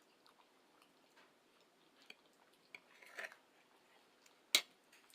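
A person chewing food quietly, with scattered wet mouth clicks, a short cluster of mouth noises about three seconds in, and one sharp click near the end.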